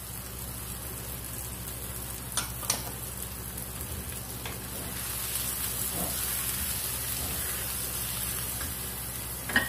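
Onions, green chillies and tomatoes frying in oil in a non-stick wok, a steady sizzle, with two sharp clicks about two and a half seconds in and another near the end. Toward the end the mixture is stirred with a wooden spoon.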